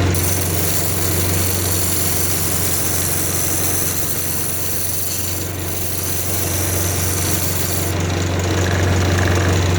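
Wood lathe running with a steady low hum while a turning tool cuts a spinning walnut blank, with a rough rattle from the tool riding on a blank that still has flat spots.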